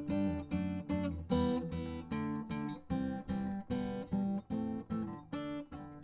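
Background music: acoustic guitar strummed in a steady rhythm, about two strums a second.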